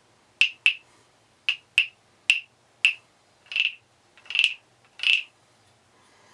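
Wooden percussion frogs (Thai frog guiros) rasped with their sticks along their ridged backs to make croaks. First come short sharp rasps, some in quick pairs, then three longer croaks about a second apart, stopping a little after five seconds.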